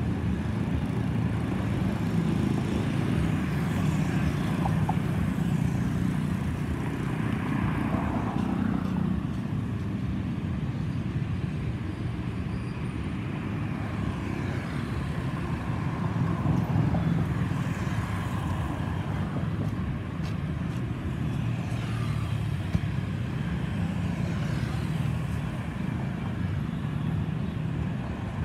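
Boeing 737-800 airliner's CFM56-7B jet engines passing overhead: a steady, low rumbling roar that swells and eases slightly, with a few slow sliding pitches.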